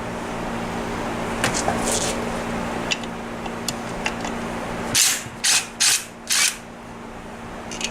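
Hand tools clicking against metal engine parts, then four quick ratcheting strokes of a socket wrench, as if loosening the bolts on a Tomos A35 moped engine's crankcase. A steady low hum runs underneath.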